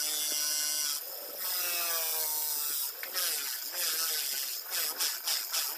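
Powertec bench grinder spinning a cloth buffing wheel with a Honda CD-70 front brake hub pressed against it for polishing. The motor's whine sinks in pitch as the work loads it, over a steady rubbing hiss, and in the second half the contact turns uneven with rapid scuffing.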